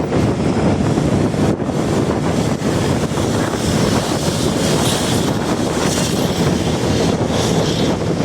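Steady, loud noise of a vehicle on the move, with wind buffeting the microphone throughout.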